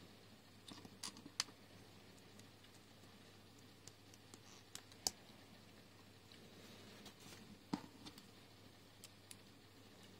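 LEGO plastic pieces clicking and tapping as they are handled and pressed together onto a small model, a few scattered sharp clicks over faint room hum.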